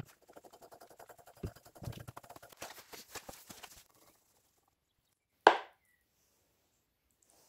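Steel ball screw parts being handled by hand, giving a quick run of small metallic clicks and light knocks for about four seconds. Then one sharp knock comes about five and a half seconds in.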